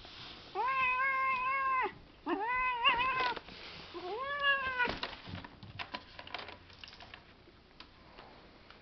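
Calico kitten meowing three times, each a long drawn-out meow of about a second, followed by a scatter of light clicks and scuffs.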